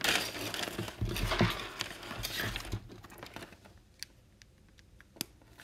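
Rustling handling noise, then a few sharp taps near the end: a stylus tapped against a tablet screen, no longer writing because its battery has run out.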